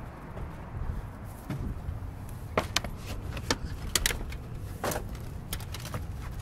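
Short sharp clicks and scuffs of hands and shoes on slate roof tiles and stone as a climber moves up a steep roof. They come several in the second half, over a steady low rumble.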